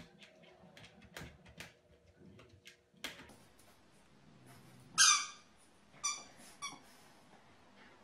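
French bulldog puppy giving a high-pitched bark about five seconds in, the loudest sound, followed by two shorter, fainter yips about a second later.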